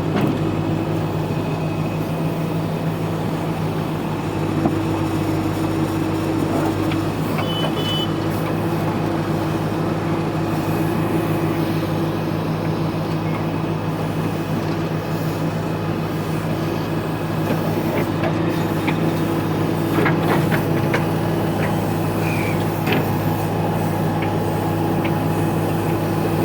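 Tata TH86 backhoe loader's diesel engine running steadily under work, with a few short knocks about two-thirds of the way through.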